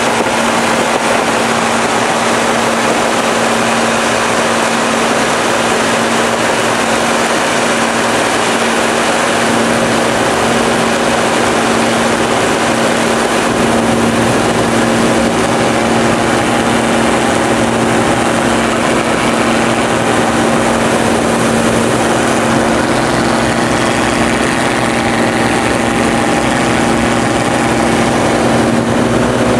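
Propeller-driven light aircraft in flight: a steady engine and propeller drone with a constant low hum, and a few higher tones joining in over the second half.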